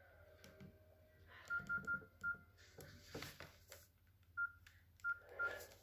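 Nokia 6630 keypad beeps as its buttons are pressed: seven short beeps of the same pitch, four in quick succession and then three more a couple of seconds later. Faint button clicks and handling noise come between them.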